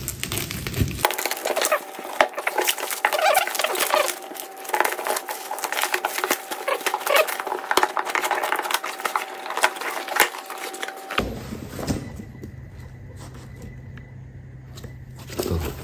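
Plastic stretch wrap and bubble wrap crackling and tearing as they are pulled off a cardboard shipping box: a dense run of crinkles and snaps that stops about eleven seconds in, followed by quieter handling of the opened box.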